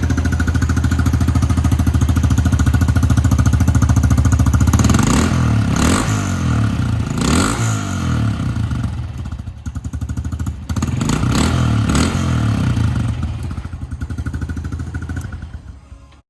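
Honda CRF110F pit bike's 110cc air-cooled four-stroke single running through the stock exhaust: a steady idle, then a few throttle blips with revs rising and falling, dropping back and picking up again before easing off.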